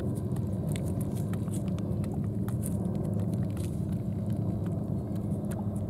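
A cat licking a lickable treat from a squeeze tube: quick, wet tongue clicks and smacks, over a steady low rumble.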